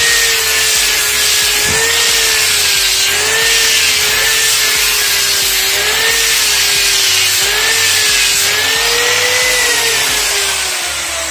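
Electric angle grinder with a sanding disc running against the cut end of a dry tree branch, levelling it; the motor's pitch wavers up and down as it is pressed into the wood. Near the end the pitch sags and the level drops as it comes off the wood.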